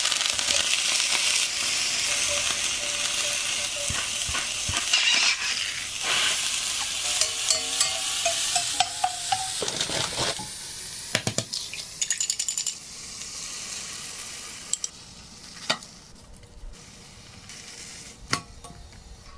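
Food sizzling in a hot frying pan, with clicks and scrapes of a utensil against the pan; the sizzle dies down after about ten seconds.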